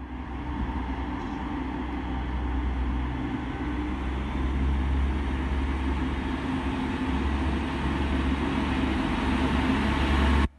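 DB Class 612 diesel multiple unit approaching under diesel power: a deep, steady engine drone with a strong low hum that grows louder as the train nears, then cuts off abruptly near the end.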